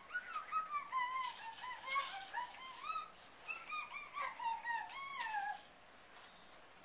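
Young child's high-pitched vocalizing: a quick run of short squealing syllables that rise and fall, stopping about five and a half seconds in.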